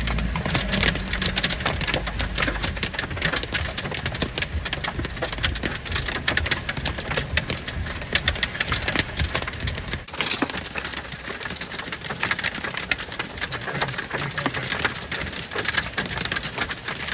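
Hail and heavy rain pelting a car's roof and windshield, heard from inside the car as a dense, continuous clatter of sharp impacts. A low rumble underneath stops suddenly about ten seconds in.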